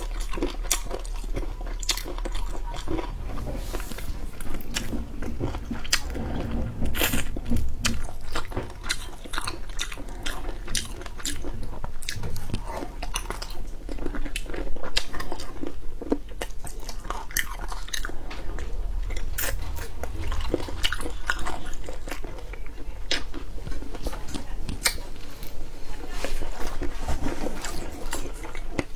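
Close-miked mouth sounds of a person biting and chewing food: a steady stream of irregular crisp clicks and smacks.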